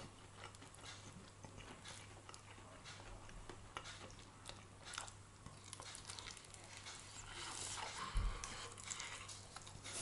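A person chewing and biting into air-fried food close to the microphone, with faint small crunches and mouth clicks. The sound grows busier near the end, with a low thump about eight seconds in.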